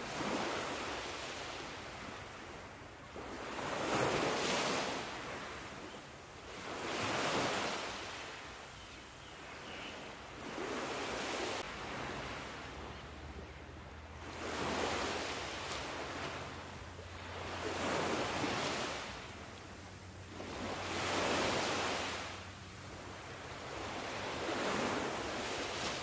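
Ocean waves washing onto a beach. Each wave swells to a hiss and falls away, about every three to four seconds.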